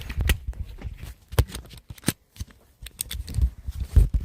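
A quick irregular run of clicks, knocks and low thumps, loudest near the end.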